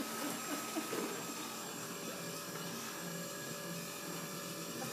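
Electric hydraulic pump of a home-built wheelchair lift in a modified Dodge Ram pickup, running with a steady hum as the lift platform is raised.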